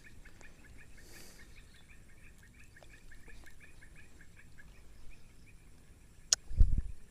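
A bird chirping faintly in a fast, even series of short high notes. Near the end comes a sharp click, then a brief low thump.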